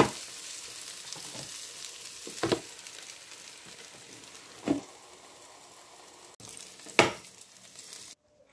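Beef mince kebabs sizzling on an electric contact grill: a steady fizzing hiss that fades near the end. Four short, sharp clicks fall about two seconds apart.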